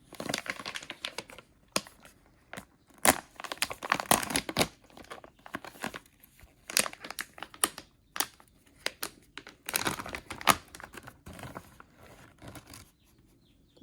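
Plastic wrapper crinkling and tearing in irregular crackly bursts as a rawhide chew is unwrapped.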